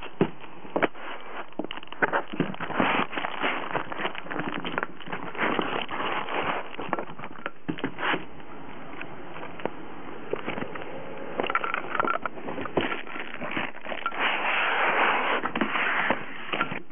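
Cardboard box and foam packing being handled as a laptop is taken out of its box: scrapes, rubbing and many small knocks, with a longer stretch of denser rustling and crinkling in the last few seconds.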